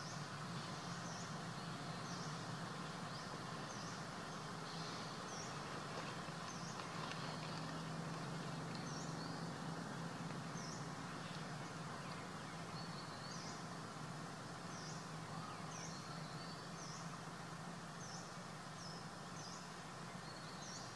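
Outdoor ambience: a steady hiss and low hum, with small birds giving short, high chirps again and again throughout.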